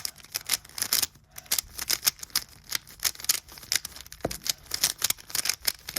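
Rubik's cube layers turned by hand in quick succession: a rapid run of plastic clicks and clacks, several a second, as the up-right-down-left algorithm is repeated.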